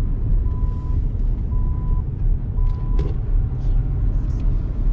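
Inside a lorry cab while driving: steady low rumble of the engine and road noise, with three short, high electronic beeps in the first three seconds and a single click about three seconds in.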